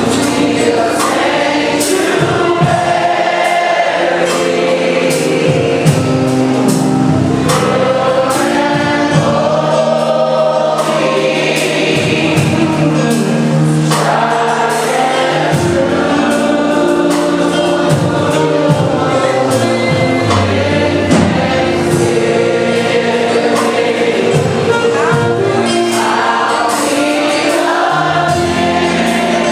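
Church choir singing a gospel song over instrumental accompaniment with a steady beat.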